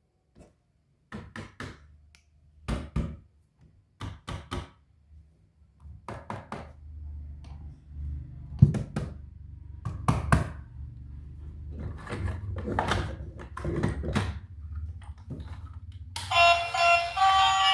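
A series of irregular thunks and knocks over a low rumble. Music comes in near the end.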